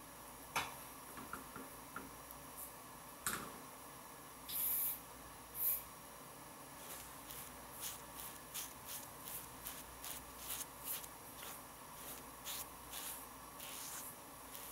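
A few light clicks, then two short hissing spurts of aerosol shaving foam about four and a half and six seconds in, followed by fingers rubbing the foam over a stubbly face in quick, soft, squishy strokes.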